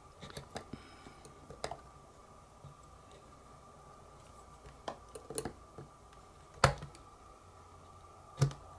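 Small screwdriver clicking and tapping against screws and the plastic case of a Logitech Squeezebox Boom radio as it is taken apart: scattered light clicks, with two louder knocks near the end.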